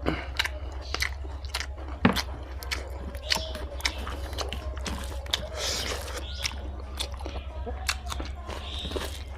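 Close-miked eating of pork fry with rice: chewing and biting with many sharp, irregular wet mouth clicks and smacks. A steady low hum runs underneath.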